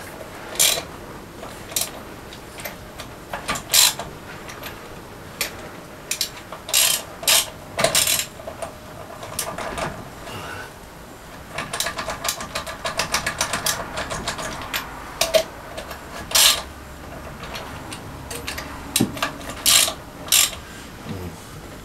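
Ratchet wrench clicking in short runs, with scattered sharp metal clicks and knocks, as the cylinder-head nuts of a small marine diesel are snugged down lightly to seat the head. A denser run of rapid clicks comes around the middle.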